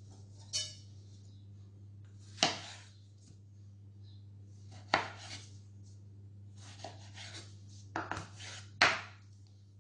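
Kitchen knife cutting a tomato and knocking on a wooden chopping board: about six sharp knocks, irregularly spaced a second or two apart.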